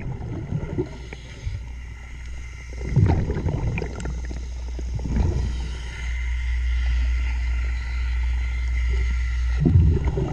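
Underwater sound of a diver breathing through a regulator: bursts of exhaled bubbles a few seconds apart over a steady low rumble.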